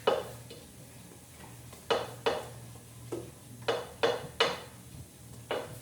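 Cake batter being stirred by hand in a mixing bowl: a utensil clinking and scraping against the bowl in sharp, uneven strokes, about nine in all, some in quick pairs.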